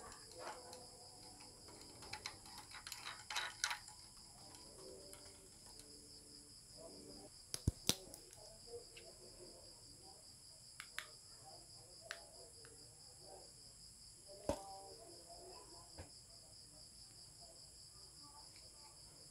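Crickets trilling steadily in the background, with scattered sharp clicks and knocks from a ring light's plastic stand and parts being handled; the loudest clicks come about 8 and 14 seconds in.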